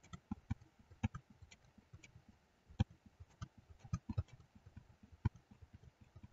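Computer keyboard keys pressed over and over, an irregular string of short clicks, a few per second: the Ctrl+Z undo shortcut being hit repeatedly.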